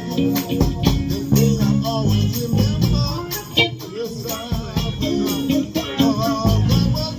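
Live band playing an upbeat soul/funk tune: bass and guitar lines with jingling hand percussion keeping a steady beat.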